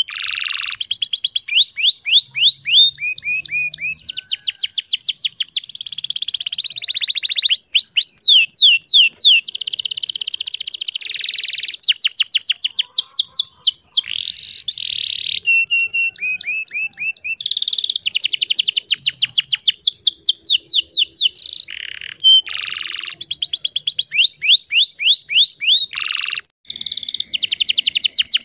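Domestic canary singing a long, continuous song of fast rolling trills and rapidly repeated sweeping notes, with brief pauses between phrases.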